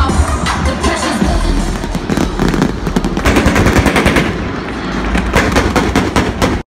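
Stadium pyrotechnics firing in a rapid salvo, a fast run of crackling bangs like machine-gun fire, over loud music. The sound cuts off abruptly near the end.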